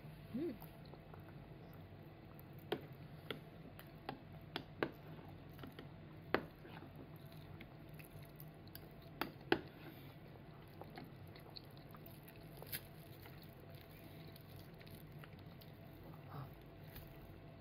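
A toddler eating with a spoon: soft chewing and mouth sounds, with scattered sharp clicks of the spoon against ceramic cup and bowls, most of them in the first ten seconds.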